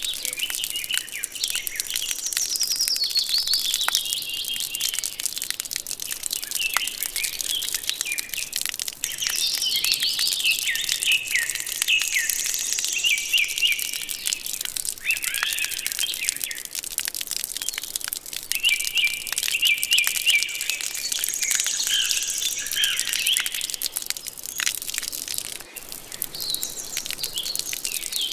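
Small birds chirping, short twittering and trilled phrases following one another, over many faint ticks.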